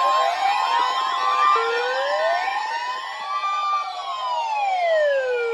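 Siren wailing: the pitch climbs and falls in smooth, slow sweeps, about one rise and fall every four seconds, after a short stretch of quicker warbling chirps at the start.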